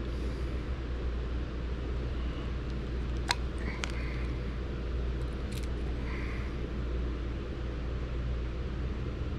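Steady low background hum, with light clicks of small tools and parts being handled on the workbench, two sharp ones about three and five and a half seconds in.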